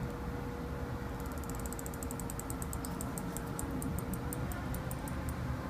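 Faint, high-pitched crackling ticks, about five or six a second, from rosin flux sizzling as a soldering iron heats a motor-wire joint on the ESC pad. The ticks thin out toward the end, over a steady faint hum.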